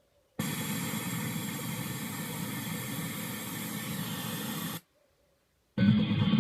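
Simulated radio-tuning static from iRadio internet-radio software during a channel change: about four seconds of steady hiss that starts after a short pause and cuts off sharply.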